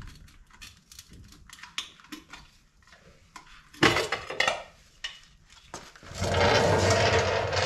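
Metal hand tools clinking and clattering as they are handled, with a sharp clank about four seconds in, then a louder steady rattling noise for the last couple of seconds.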